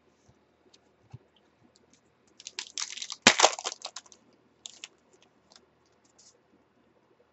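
Trading-card pack wrapper crinkling and tearing as it is opened. It comes as a burst of crackling about two and a half seconds in that lasts under two seconds, with scattered light clicks of cards being handled before and after.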